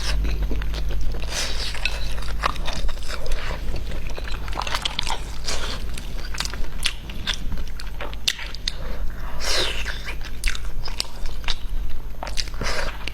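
Close-miked eating: biting and chewing crunchy food, a dense irregular run of sharp crunches and wet clicks, over a steady low hum.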